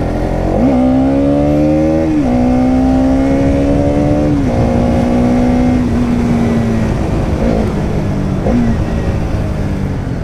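Bajaj Pulsar NS200's single-cylinder engine pulling under way, heard from on the bike: the revs climb, fall sharply about two seconds in and again about four and a half seconds in as it shifts up, then hold and slowly ease off.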